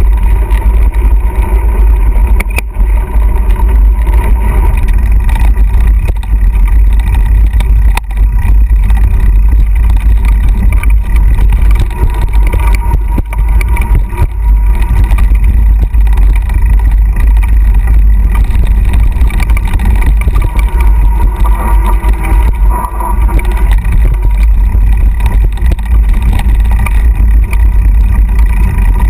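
Heavy wind rumble on the microphone and the rattle of a mountain bike rolling fast down a dirt singletrack, with a few sharp knocks from bumps in the trail.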